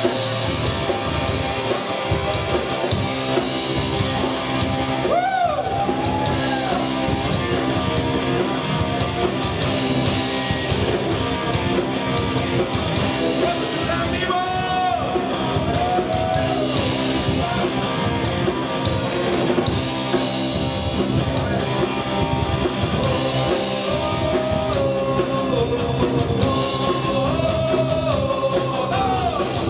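A rock band playing live: electric guitars, bass and drum kit, with singing.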